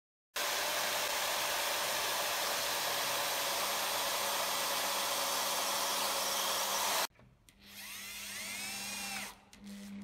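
Corded electric drill running steadily at full speed against a mortise lock's brass faceplate in a wooden door; the sound cuts off abruptly about seven seconds in. A quieter drill burst follows, its pitch rising and then falling as the motor speeds up and slows down, then a few clicks.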